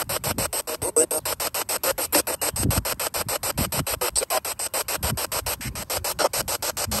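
Spirit box sweeping through radio stations: static chopped into about ten short pulses a second, with brief snatches of radio sound among them.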